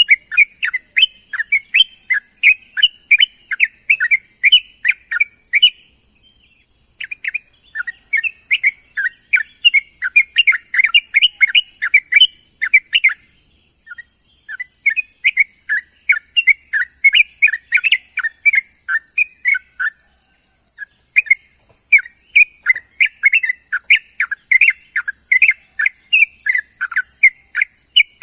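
Yellow-vented bulbul (trucuk) calling: runs of quick, bubbly chirping notes in phrases a few seconds long, broken by short pauses, over a steady high hiss.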